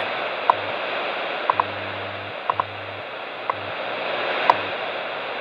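WWV time signal received on a Belka DX shortwave receiver with its sensitivity set high, heard through a small speaker: steady static hiss with a short high tick once a second, some of them doubled. Under it, a low hum switches on and off in short and long pieces: WWV's time code.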